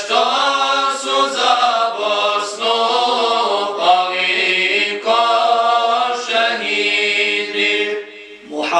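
A group of male voices singing a Bosnian ilahija (Islamic devotional hymn) a cappella, in long, drawn-out sung lines. The singing dips briefly just before the end.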